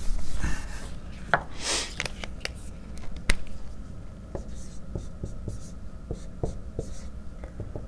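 A whiteboard eraser rubs across the board in a few swishes, then a dry-erase marker writes on it with short taps and strokes of the tip, one sharper tap about three seconds in.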